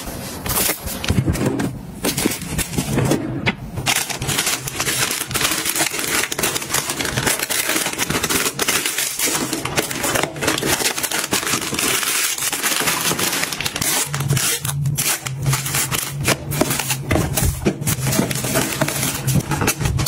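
Plastic wrapping on packs of tissues crinkling and crackling as the packs are torn open and handled.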